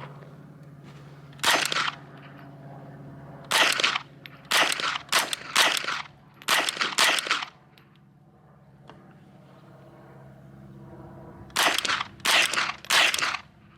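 Chiappa AK-22 semi-automatic .22 LR rifle firing Federal Lightning rounds: a string of single shots at an uneven pace, with a pause of about four seconds partway through. The rifle feeds and cycles every round without a malfunction.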